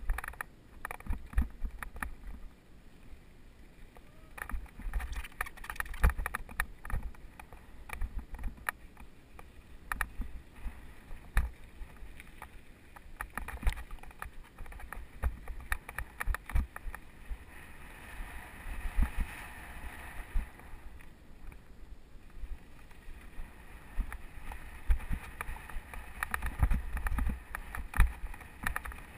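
Mountain bike riding down a rough dirt singletrack: frequent knocks and rattles as it jolts over bumps, tyres crunching on dirt, and a low wind rumble on the helmet-mounted microphone. A stretch of louder hissing comes about two-thirds of the way through.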